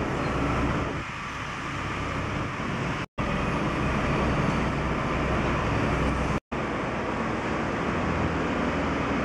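Street traffic noise: a steady rumble of passing cars and other road vehicles, broken by two brief cuts to silence about three and six and a half seconds in.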